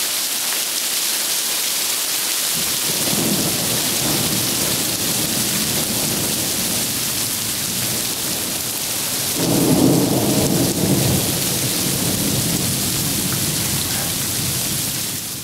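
Heavy rain in a thunderstorm, with thunder rumbling after a lightning strike: a low rumble builds about two and a half seconds in, and a louder peal comes about two-thirds of the way through before it dies back into the steady downpour.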